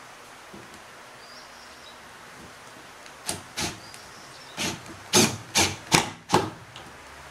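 Cordless drill-driver driving a screw into a wooden bed slat in seven short trigger bursts, starting about three seconds in, the last four loudest.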